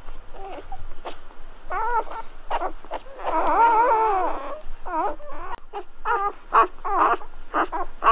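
Newborn golden retriever puppies squeaking and whimpering in a run of short, high, wavering cries, with a longer wail from more than one pup about three seconds in.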